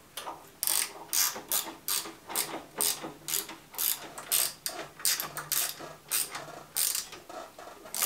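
Hand ratchet wrench clicking in a run of quick back-and-forth strokes, about two to three a second, as a bolt on the engine's exhaust mounting is tightened.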